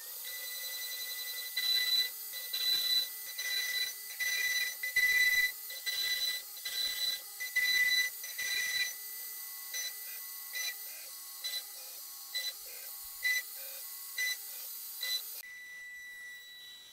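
CNC router spindle running at 24,000 rpm with a steady high whine while a 3.17 mm two-flute upcut endmill mills holes in a polycarbonate sheet. Short bursts of cutting noise come about twice a second as the bit plunges and clears each hole, and stop about fifteen seconds in, leaving a fainter steady tone.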